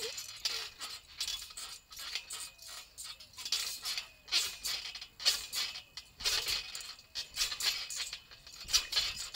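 Trampoline coil springs creaking and jingling as someone bounces on the mat, in bursts about a second apart.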